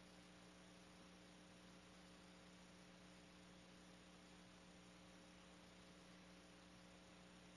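Near silence: a faint steady electrical hum with light hiss from the recording chain.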